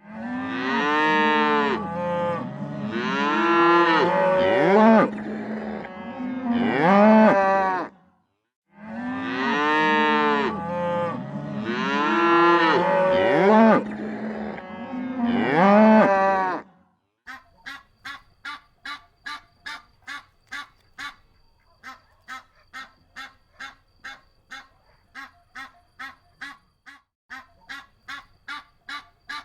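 Cattle mooing, several calls overlapping with rising and falling pitch, the same 8-second stretch heard twice with a brief break between. Then a duck quacking in a quick, even series of short calls, about two a second.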